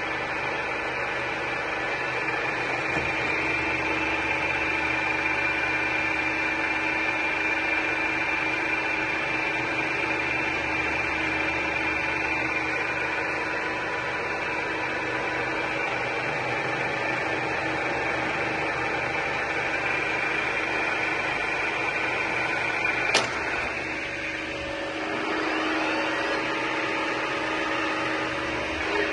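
Heidenreich & Harbeck 540 centre lathe running, a steady mechanical hum with a high whine. There is a sharp click late on, after which the pitch of the running changes.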